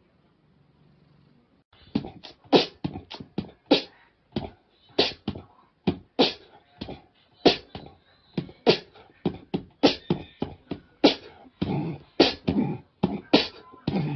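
Beatboxing: a fast, driving run of mouth-made drum hits, sharp clicks and snare-like bursts with bass thumps and short vocal sounds, starting about two seconds in after a faint low hum.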